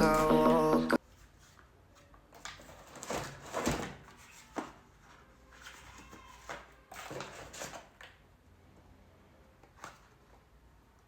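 A short stretch of background music cuts off about a second in. Then come scattered handling noises, rustles and a few knocks, as things are handled and unpacked. They are busiest in the middle and die down near the end.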